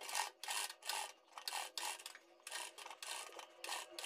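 Domestic sewing machine stitching slowly through fabric and lace trim, a faint rasping sound that comes in short uneven bursts about three times a second.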